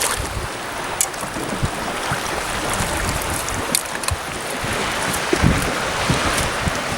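Water lapping and splashing against a small fishing boat, with a few sharp clicks and knocks.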